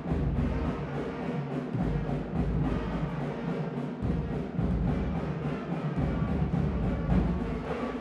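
School concert band playing a piece: brass and saxophones over a sousaphone bass line, with held low notes that change every second or two and drums keeping a steady beat.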